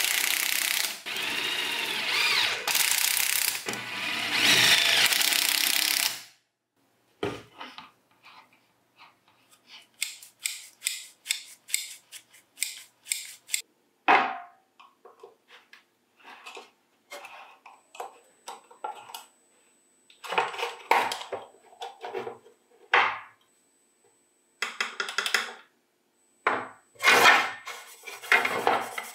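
A small power tool runs for about six seconds and stops suddenly, followed by a long run of short clicks, taps and scraping sounds from parts being handled and worked by hand.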